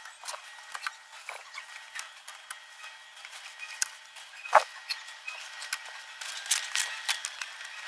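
Small metal hand tools clicking and ticking irregularly as a flare is remade on the end of a copper refrigerant pipe, with one sharper click about halfway through and a quick run of clicks near the end.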